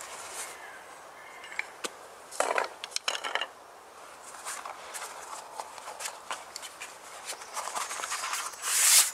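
Small clicks, taps and knocks of kit being handled and set out, louder for a moment about two and a half seconds in, with a short rustle near the end.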